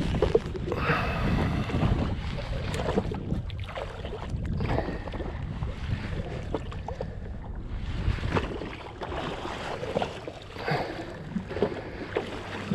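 Wind buffeting the microphone and water sloshing against a drifting jet ski's hull, with a few irregular knocks.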